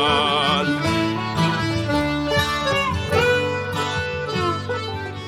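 Instrumental break in a folk song: acoustic guitar picking under a fiddle melody, after the singer's last held note dies away about half a second in.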